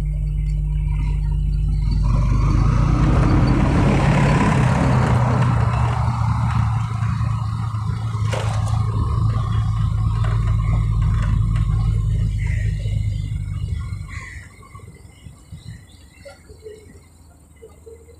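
Motorcycle engine running while the bike is ridden, with wind rushing over the microphone and one sharp click about eight and a half seconds in. The sound falls much quieter about fourteen seconds in as the bike slows.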